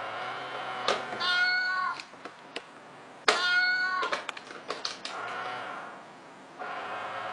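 Two short meows, about a second in and again about two seconds later, each opening with a sharp click. A run of quick clicks follows, over a steady whirring hum from the cat-in-the-box toy coin bank as its lid opens and shuts.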